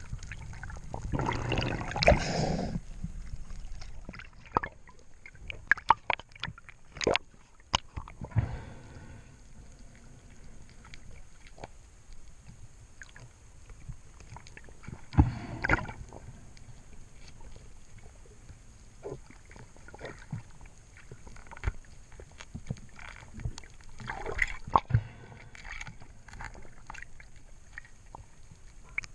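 Water sloshing and gurgling, with scattered sharp clicks and a few louder splashing bursts, about two seconds in, around fifteen seconds and near twenty-five seconds.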